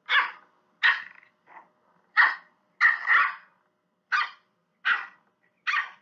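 Puppy barking: a string of short, high-pitched yaps, roughly one a second.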